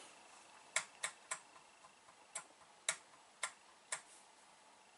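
Faint computer mouse clicks, about seven single clicks at irregular spacing.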